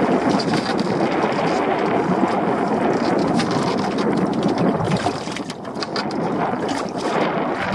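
Strong wind buffeting the microphone over choppy water around a small dinghy, with a few light knocks as the dinghy works against the side of a larger boat.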